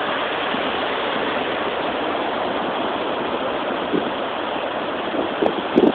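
Small surf breaking and washing up on a sandy beach: a steady rushing hiss, with a couple of louder bumps near the end.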